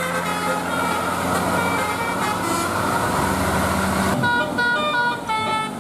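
Bus engine running, with faint notes of a telolet basuri multi-tone horn over it; about four seconds in the horn comes in clearly, playing a quick melody of short stepped notes.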